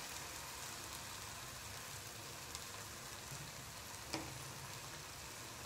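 Nendran banana pieces sizzling faintly as they fry in ghee in a pan, with a sharp click of a knife on a plate about four seconds in.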